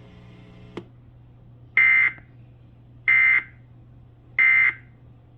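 Emergency Alert System end-of-message signal: three short, identical buzzy bursts of SAME digital data tone about a second and a quarter apart, marking the end of the weather warning broadcast.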